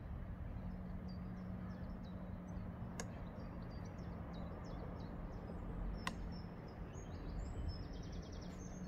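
Small birds chirping in short high notes, with a quick trill near the end, over a steady low rumble and a faint steady hum. Two sharp clicks come about three seconds in and about six seconds in.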